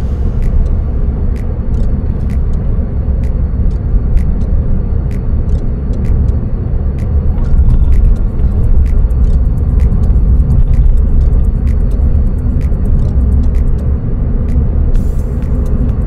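Steady low rumble of engine and road noise inside the cabin of a Suzuki Swift Sport (ZC32S) under way. Faint background music with a light, regular ticking beat runs over it.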